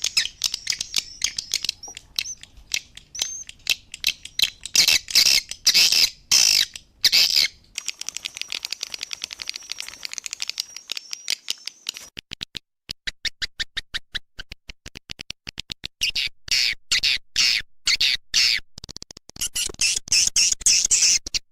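Swiftlet-farm lure recording of edible-nest swiftlet calls: dense high chirps and buzzy twitters. About midway the chirping thins to a run of fast, evenly spaced clicks, then the twittering builds again.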